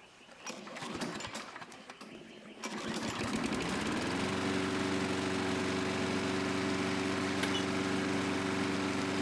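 Craftsman walk-behind lawn mower engine starting: a couple of seconds of irregular clicking and rattling, then the engine catches, revs up and settles into a steady run.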